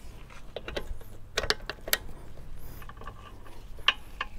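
Sharp metallic clicks and clacks of hydraulic quick-coupler fittings and their dust covers being handled at a tractor's loader valve. There is a cluster of clicks about a second and a half in, and the loudest click comes near the end.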